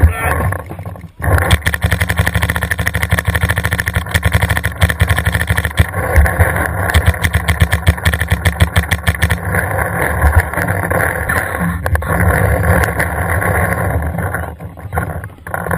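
Paintball marker firing rapidly in long strings of shots, many a second, pausing briefly just after the start and again near the end.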